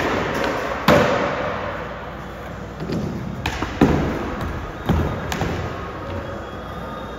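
Skateboard rolling, with several sharp clacks and thuds of the board striking the ground, the loudest about a second in.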